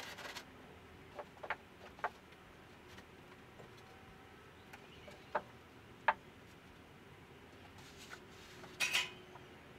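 A few faint, scattered clicks and knocks from hands working at the strapped top edge of a foam trailer wall, with a brief rustling scrape near the end.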